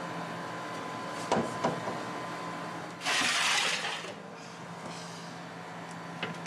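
A commercial deck oven's door is unlatched with two clicks and pulled open, then a rushing scrape lasts about a second, about three seconds in. A steady hum of the oven and kitchen equipment runs underneath.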